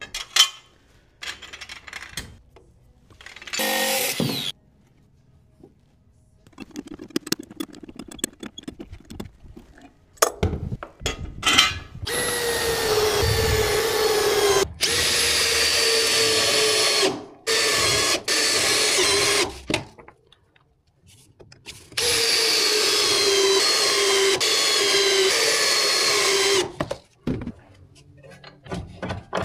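Makita cordless driver running in several long runs, driving 1/4" x 3" SDS structural screws through a steel hold-down into a wood post. The motor's pitch sags slowly as each screw bites and seats, after a few short bursts at the start.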